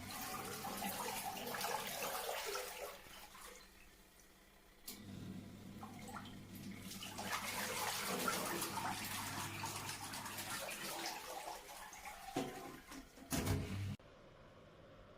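Foldable portable mini washing machine churning water, with sloshing and splashing. Its motor gives a low hum that stops and starts again. The sound cuts off suddenly near the end.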